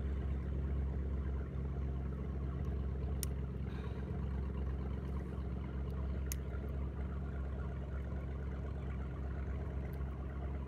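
Steady low drone of a boat engine running, with two faint sharp clicks about three and six seconds in as pliers work a crankbait's hooks out of a fish's mouth.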